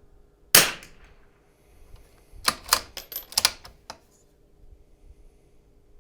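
A single .22 LR shot from a Zermatt Rim-X bolt-action rifle, sharp with a short ring. About two seconds later comes a quick run of metallic clicks as the bolt is worked to eject the case and chamber the next round.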